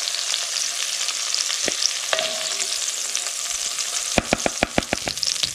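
Zucchini slices sizzling in hot oil in a cast-iron Dutch oven while a wooden spatula stirs and lifts them. About four seconds in comes a quick run of about eight sharp knocks.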